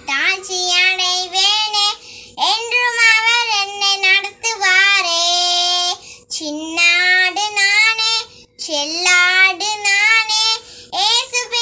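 A young girl singing a gospel song solo, in sustained sung phrases with short breaths between them.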